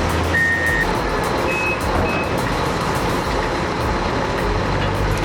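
Heavy machinery running with a reversing alarm beeping: a beep early, then two shorter, higher beeps about two seconds in, over a steady engine and mechanical rumble.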